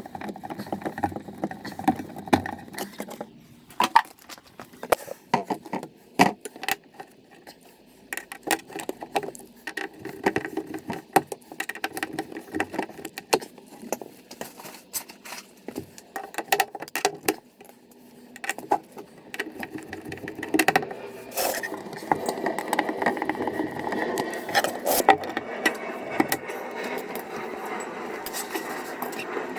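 Hand tools and metal fittings clicking, knocking, rattling and scraping during hands-on plumbing work on a sink and tap, with many short irregular clicks and bangs.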